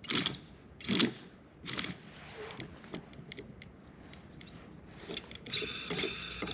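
Metal parts of a disassembled table-saw motor being worked by hand around a worn, noisy bearing. Three short rasping scrapes come about a second apart, then light clicks and taps, and near the end a brief scraping with a faint metallic ring.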